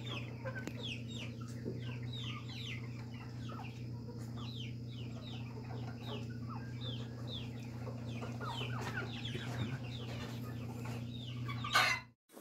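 Chickens in a coop, chirping and clucking in a steady run of short, high, falling calls, a few each second, over a steady low hum. The sound cuts out suddenly near the end.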